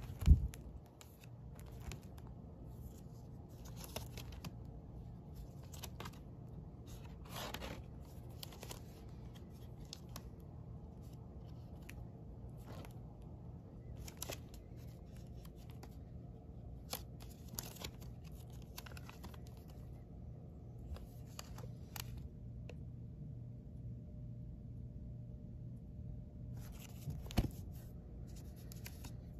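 Vinyl records in plastic sleeves being flipped through in a bin: scattered crinkles, rustles and clicks as the jackets knock together, over a steady low hum. A sharp thump just after the start and another near the end.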